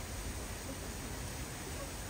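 Steady outdoor background noise with a low rumble, with no distinct event.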